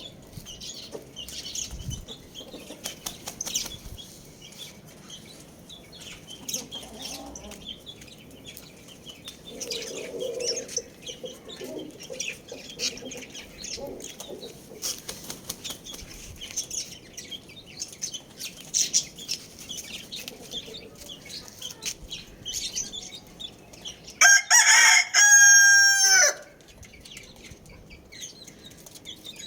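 Chickens clucking and scratching with scattered rustling and clicks, then a single rooster crow about 24 seconds in, lasting about two seconds and much louder than everything else.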